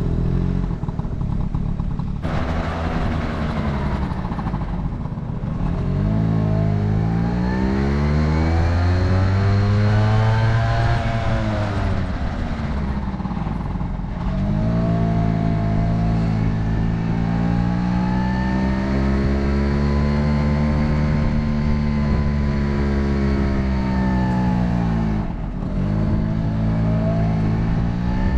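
Honda Motocompo scooter's small two-stroke engine running under throttle while riding, its pitch rising and falling in long sweeps. The engine drops briefly off throttle about two seconds in, about halfway through and near the end.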